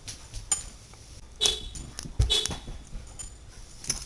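Car horn giving short beeps, set off by the lock button on a remote key fob: two brief chirps about a second apart, with clicks and small rattles from the keys being handled.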